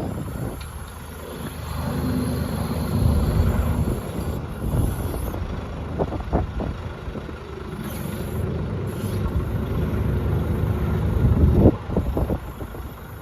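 The Kubota diesel engine of an AGT NT45 mini excavator running, swelling louder twice as the machine is worked. A few sharp knocks come about halfway through and again near the end.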